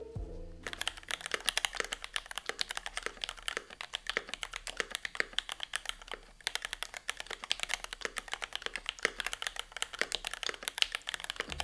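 Fast, continuous typing on a Keychron V1 mechanical keyboard, with a plastic case, the plate screwed straight into the case and two layers of dampening material inside: a dense run of keystroke clacks with a brief pause about halfway through.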